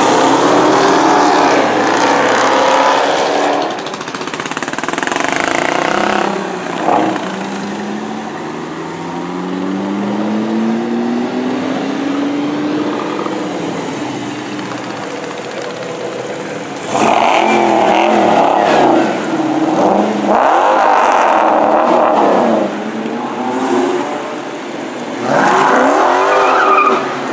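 A motorcycle and several muscle cars, Dodge Challengers among them, pulling away one after another and accelerating hard. The engines rev loudly in repeated bursts, pitch rising as they speed off, with a slower rising run in the middle and three hard bursts in the last ten seconds.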